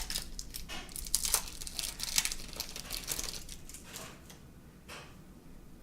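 Plastic baseball-card pack wrapper crinkling and tearing in the hands as a pack is opened. It is busy and crackly for the first three seconds or so, then dies down to a few faint rustles.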